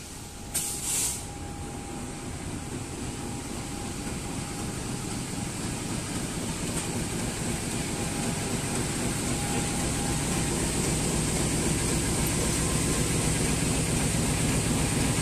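Diesel-electric locomotive of a passenger train running in along the platform, its engine rumble growing steadily louder as it draws near, with a short sharp hiss about a second in.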